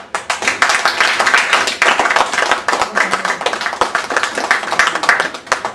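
Audience applauding: a dense patter of many hand claps that starts suddenly and dies away near the end.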